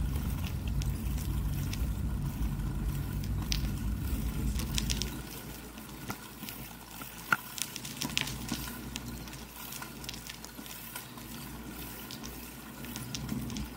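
Child's small bicycle rolling over concrete: tyre rumble and wind on the bike-mounted microphone, louder for about the first five seconds, then quieter with scattered small clicks and rattles.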